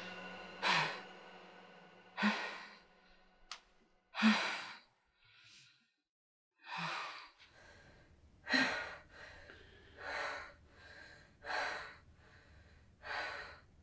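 A woman breathing deeply and audibly, with eight slow breaths about one every one and a half to two seconds and faint pauses between them.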